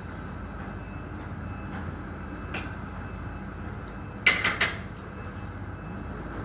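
Steady low background hum, with a single sharp knock about two and a half seconds in and a quick run of three louder sharp knocks a little past four seconds.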